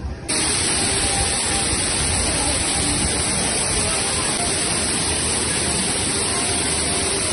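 Fountain water curtain pouring down into its pool: a steady, loud rush of falling, splashing water that starts suddenly just after the beginning.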